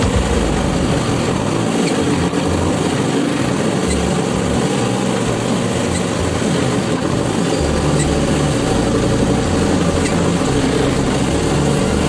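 Backhoe loader's diesel engine running steadily as the machine works its front loader bucket.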